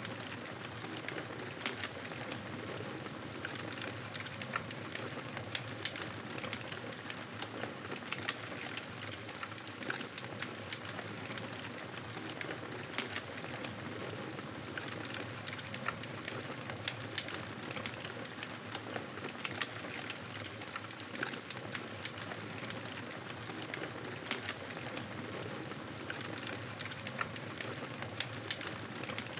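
Campfire crackling: a steady hiss of burning wood with frequent small, irregular pops and snaps.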